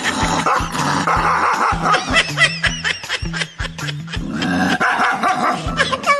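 A dog barking repeatedly and aggressively at its own reflection in a mirror, with the barks clustered around the middle, over background music with a steady beat.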